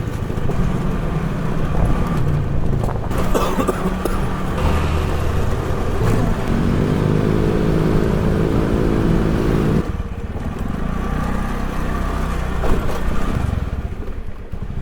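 A motor vehicle engine running with road and wind noise; from about six and a half seconds in, an engine note with a steady pitch stands out for some three seconds, then drops away suddenly.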